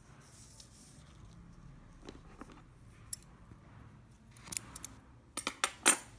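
Metal scissors snipping thread. A few faint clicks come first, then a quick run of sharp snips near the end, the last one the loudest.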